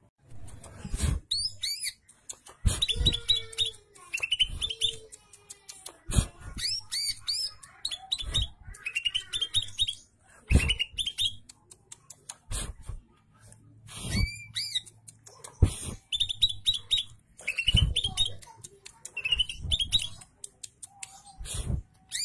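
Caged male green leafbird (cucak ijo) singing in repeated short bursts of quick, slurred whistled notes, mixed with sharp clicking and chipping notes and broken by brief pauses.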